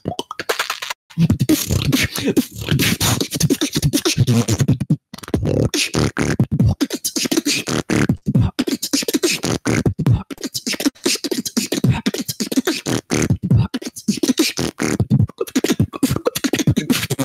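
Solo beatboxing into a handheld microphone: a fast, dense run of percussive hits and clicks over deep, low vocal bass tones, with brief breaks about a second in and about five seconds in.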